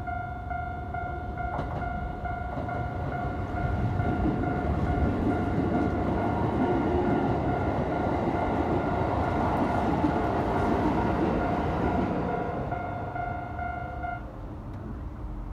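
A Keikyu Line electric train passing over a level crossing: its running noise swells about four seconds in, stays loud for several seconds, then fades. Throughout, the crossing's electronic warning bell rings, and it stops shortly before the end.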